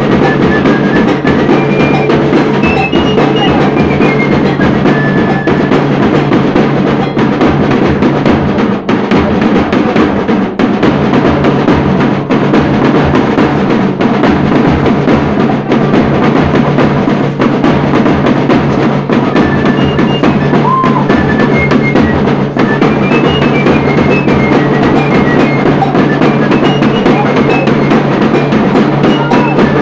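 Loud, continuous festive music led by drums and percussion, with a dense rattling wash over a pulsing beat and a few short high notes.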